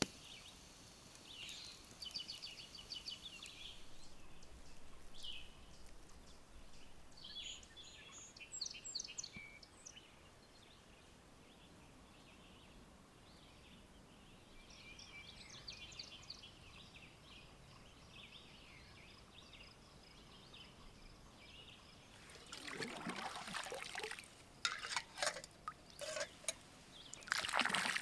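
Small songbirds singing faintly in short, repeated high phrases, one of them a trill, over a quiet outdoor background. Near the end comes a series of sharp knocks and rustles from gear being handled.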